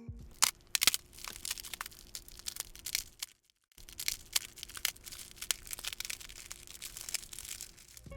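Ice cream cone being crushed: irregular dry crunches and cracks, a foley imitation of a velociraptor hatching from its egg. The crunching stops for about half a second near the middle.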